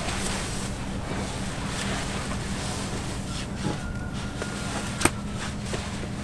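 Outdoor ambience on a sailboat: a steady haze of wind and water noise with a low steady hum underneath, and one sharp click about five seconds in.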